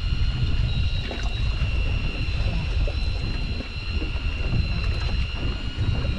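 Wind rumbling on the microphone outdoors, with a faint steady high-pitched whine running under it.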